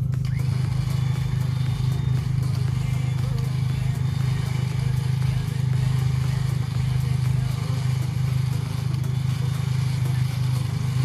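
A 4x4's engine running steadily with a constant low drone.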